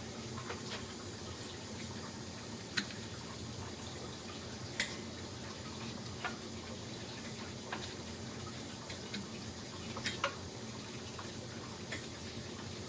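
A steady background hiss with a faint low hum, broken by a few light, sharp clicks and taps spread irregularly through it, about seven in all.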